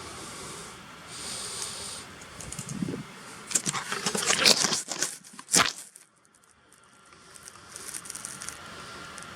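Rustling and crackly clicking of hands handling the laptop and microphone, ending in one sharp knock about five and a half seconds in, over a steady background hiss.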